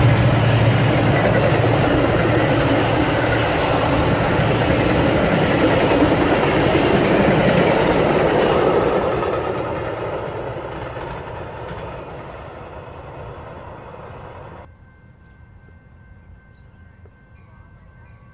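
Metra commuter train of bi-level gallery cars rolling past on the tracks, with a low hum at first from the diesel locomotive pulling away. The sound fades gradually as the train recedes, then drops off suddenly about 15 seconds in.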